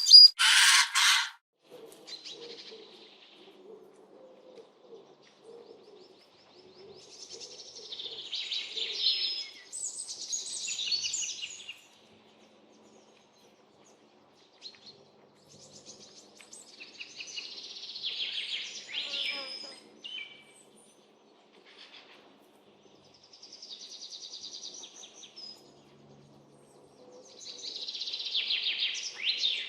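Songbirds chirping and singing in short phrases of a few seconds each, with quiet gaps between them. It opens with a loud rush of noise lasting about a second.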